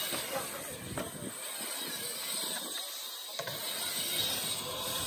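BMX bike rolling over a concrete skate bowl: tyres running on the concrete with the freewheel hub clicking as it coasts.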